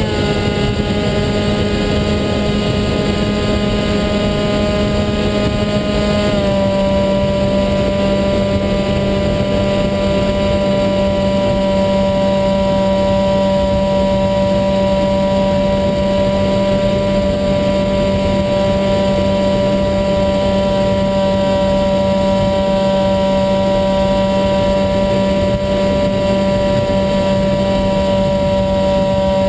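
Electric pusher motor and propeller of an HK Bixler model plane whining steadily in flight, heard from its onboard camera, with air rushing past. The pitch steps down about six seconds in as the throttle is eased back, then holds steady.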